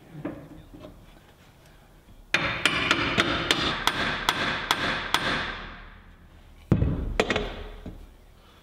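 Steel sprocket being knocked along the shaft over its key, with a run of ringing metal-on-metal strikes about three a second starting a couple of seconds in. A second, shorter burst of strikes comes near the end.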